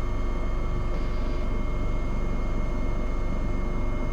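AW189 helicopter's rotor and twin turbines running at a steady drone, heard from inside the cockpit, during a slow final approach to a ship's helideck. A low, even hum with a few faint steady whining tones above it.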